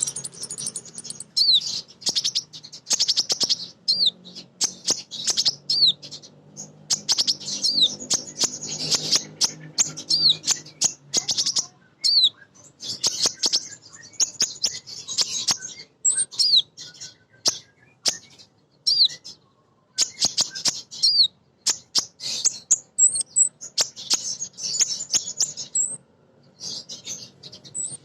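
Female sunbird (kolibri ninja) calling in fast runs of high, thin chirps and twitters. Short downward-swooping notes recur every second or so, broken by brief pauses. A low hum runs under the first half.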